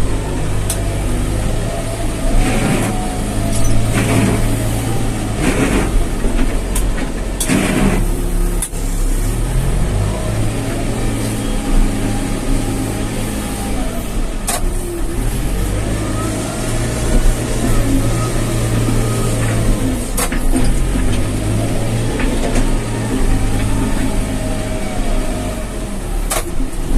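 Backhoe loader's diesel engine working under load while pushing soil through mud, its pitch rising and falling as the revs swell and drop. A few sharp knocks come through.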